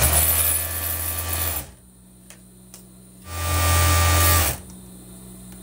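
Industrial overlock (serger) sewing machine running in two bursts, about a second and a half and then just over a second, with a short pause between, stitching the side seam of a dress.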